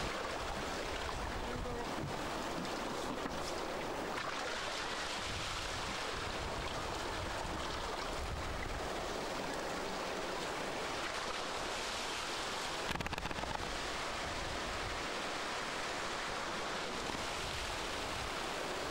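Surf washing steadily around the bow of an inflatable boat in the shallows, with wind rumbling on the microphone at times.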